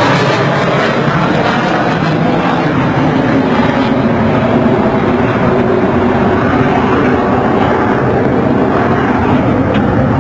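Fighter jet engine noise from a low-flying military jet: a loud, steady rush with no sharp blast standing out.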